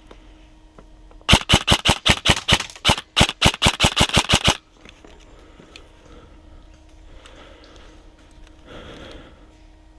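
Airsoft gun firing two quick strings of shots, about seven a second, with a brief pause between them.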